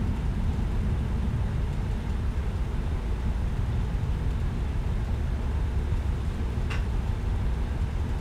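Steady low rumbling noise, with one brief high click about seven seconds in.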